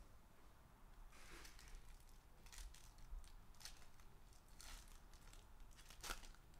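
Faint rustling and tearing as a foil trading-card pack is pulled open by hand, in a few short crinkles, with a sharper crackle of the foil about six seconds in.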